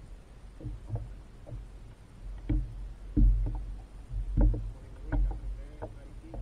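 Water slapping and knocking against a kayak's hull in irregular thumps over a low steady rumble.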